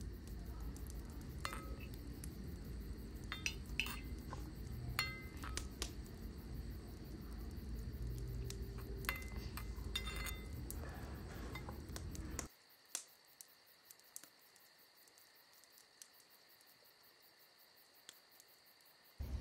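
Small metal spatula clinking and scraping against a miniature metal kadai while curry is stirred, in scattered sharp clinks over a steady low rumble. About two-thirds of the way through the rumble cuts off abruptly, leaving a quiet background with only a few faint clicks.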